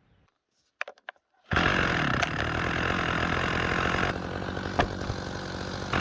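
A few light clicks, then a power tool starts suddenly and runs steadily at full speed, the sound dropping slightly in level a little over halfway through.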